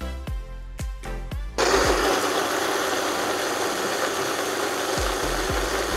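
A Vitamix blender starts up about one and a half seconds in and runs steadily at speed, puréeing a roasted red pepper sauce. Background music with a steady beat plays under it.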